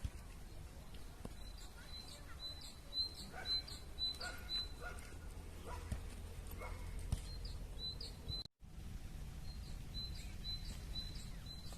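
A bird chirping in quick runs of short, high notes, twice, over a steady low rumble of outdoor background noise. The sound drops out completely for a moment about two-thirds of the way through.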